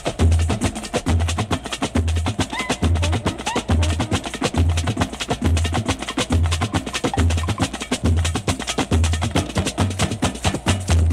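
Background music with a steady beat: a deep bass pulse about three times every two seconds under busy, clicky percussion.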